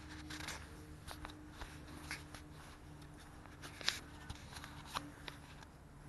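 Footsteps on a concrete walkway: a series of soft scuffs and taps, about two a second, over a faint low steady hum.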